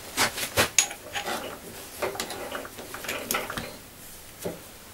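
Steel bushing being fitted and clamped in a three-jaw chuck: irregular metallic clinks, knocks and rattles of the part against the jaws and the chuck key working.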